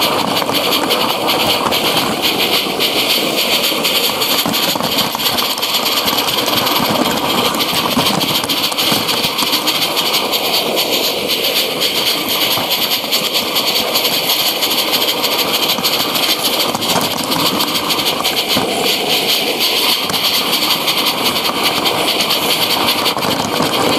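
Live-steam G-scale model of the Harz locomotive 99 222 running steadily, a fast, even chuffing over a continuous hiss of steam.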